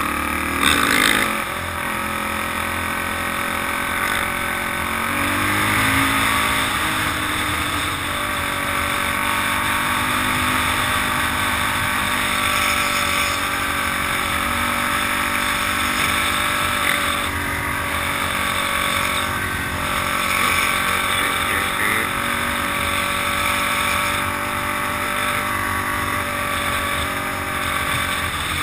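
Polaris Outlaw 500 quad's single-cylinder four-stroke engine running under way, with a brief louder burst about a second in and a change in engine pitch around five seconds in. The dirt bikes' engines ahead mix in.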